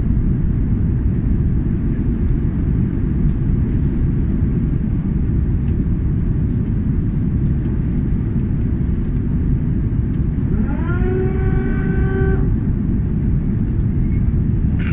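Steady low roar of an Airbus A330 cabin in flight on descent: the jet engines and rushing airflow heard from a seat over the wing. About ten seconds in, a pitched tone rises and then holds for about two seconds.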